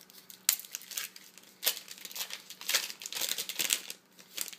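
Foil wrapper of a baseball card pack crinkling and tearing as it is ripped open by hand, in a string of sharp crackles that bunch up in the second half.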